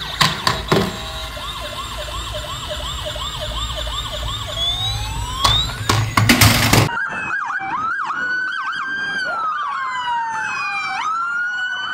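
Toy police car's electronic siren sounding: a fast repeating yelp with clicks and knocks from handling near the start and around six seconds in, then a different siren pattern with long falling wails and a quick rising sweep.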